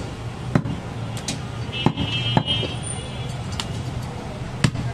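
A heavy cleaver chopping goat meat on a wooden log chopping block, about six sharp chops at uneven intervals. A steady low hum runs underneath, and a brief high tone comes about two seconds in.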